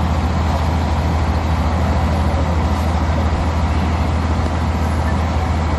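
Heavy engine running steadily with a low hum, under a steady rushing hiss.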